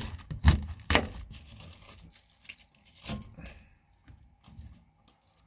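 Kitchen knife crunching down through a raw cabbage wedge onto a plastic cutting board, two or three sharp cuts in the first second. After that come quieter rustles and knocks of the cut cabbage being handled.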